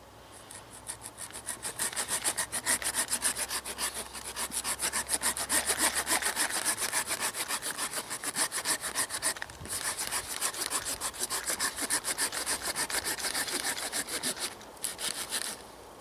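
Green-handled hand pruning saw cutting through a dead, resin-soaked conifer branch stub close to the trunk, in fast back-and-forth strokes about four a second. There is a short pause about nine seconds in, and a few last strokes near the end as the cut goes through.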